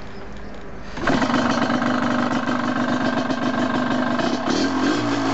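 Yamaha DT125's 125cc two-stroke single-cylinder engine, warm, starting about a second in and settling straight into a steady idle, with a brief rise and fall in revs near the end.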